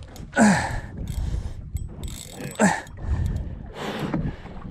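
Shimano Stella spinning reel working under heavy load, its drag giving up line in a few short, falling-pitched surges as a big fish pulls hard against it, with reel mechanism noise between them.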